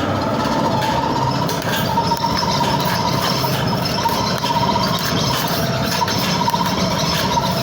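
Dough dividing and rounding machine running steadily: a continuous motor hum with a faint steady whine and light, irregular clicks.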